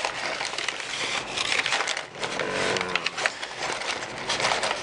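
Close, crackling handling noise: rustling and a rapid run of small clicks as small plastic tomato-grafting clips are handled.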